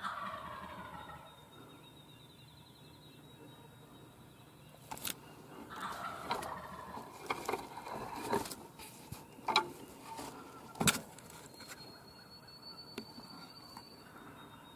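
Eastern wild turkey gobblers gobbling: one falling, rattling gobble right at the start and more gobbling about halfway through. Sharp knocks come in between, the loudest two about two-thirds of the way through.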